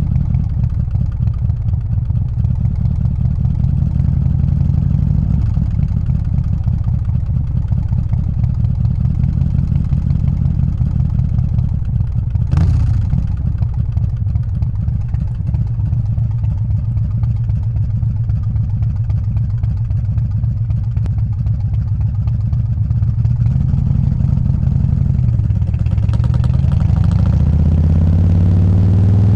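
Harley-Davidson Softail's 124 cubic inch S&S Evo V-twin engine running as the bike rides at low city speed, with one short knock about halfway through; near the end the throttle opens and the engine's pitch rises as it accelerates.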